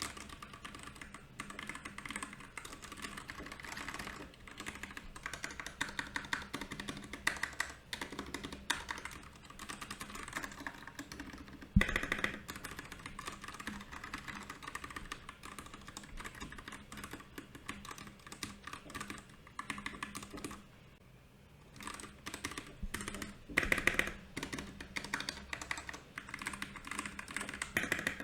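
Typing on a Royal Kludge RK68 mechanical keyboard: a steady, fast stream of key clicks and clacks. There is one louder thump about halfway through, a brief lull about three quarters of the way in, and a louder flurry soon after.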